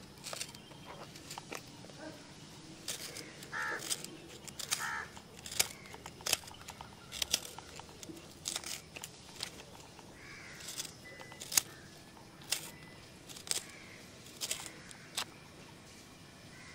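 Irregular sharp clicks and taps on a hard plastic pencil box with a built-in sharpener, as fingers and a pencil tap and scratch at its lid and sharpener.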